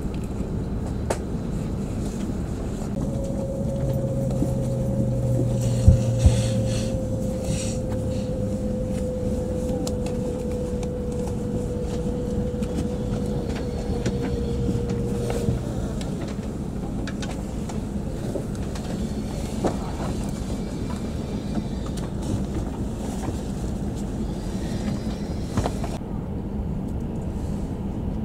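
Cabin noise inside a Shinkansen bullet train slowing into a station: a steady low rumble, with a faint whine slowly dropping in pitch from about 3 to 15 seconds in as the train decelerates. Two short thumps come about 6 seconds in.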